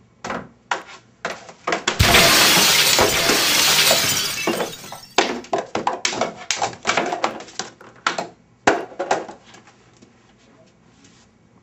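Glass shattering: a loud crash of breaking glass starting about two seconds in and lasting about three seconds, followed by a run of light taps and knocks.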